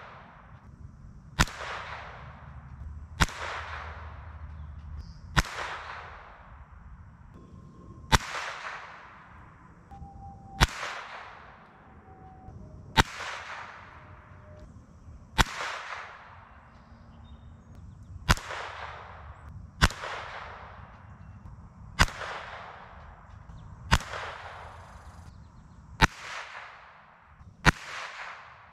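Savage Mark II heavy-barrel bolt-action .22 LR rifle firing a string of thirteen single shots, roughly every two seconds. Each crack is followed by a short fading echo.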